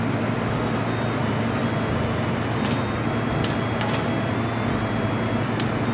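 Steady machine hum from a running handheld fiber laser welding machine and its wire feeder during manual wire feeding, with a few light clicks a few seconds in.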